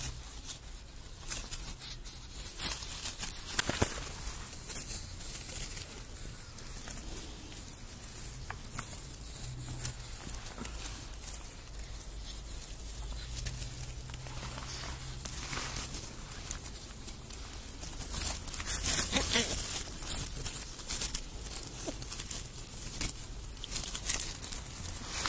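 Animals rustling and scuffling in their bedding, with irregular scratches and crinkles that grow busier about two-thirds of the way through, over a faint low hum.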